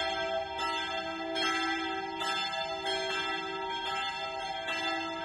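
Church bells pealing: several bells of different pitch strike in turn, about one stroke every three-quarters of a second, each left to ring on under the next.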